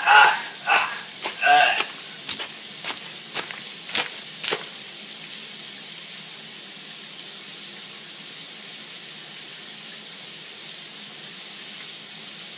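Shower spray hissing steadily. A broken scream fills the first two seconds, and several sharp clicks follow before the hiss is left on its own.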